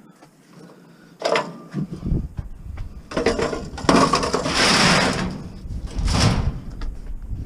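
Heavy scrap metal being shifted and loaded by hand: a knock about a second in, then longer bouts of scraping and clunking.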